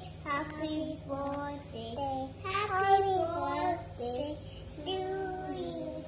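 A child singing a song in short phrases of held, gliding notes.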